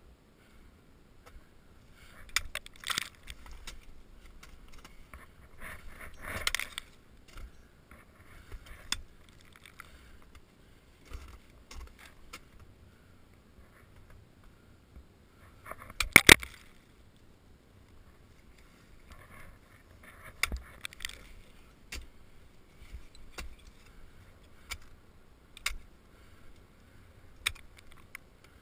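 Ice axe picks striking and scraping frozen waterfall ice as a climber swings and plants the tools, in scattered sharp hits with short crunching bursts; the loudest is a quick cluster of strikes about halfway through.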